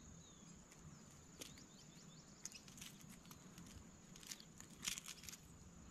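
Near-quiet outdoor ambience: a faint steady high-pitched whine, with scattered soft clicks and ticks, a few louder ones about five seconds in.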